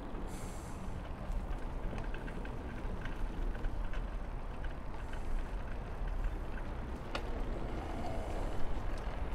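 Riding a single-speed bicycle: steady wind on the lavalier microphone and tyre rumble, with small rattles and a sharp click about seven seconds in.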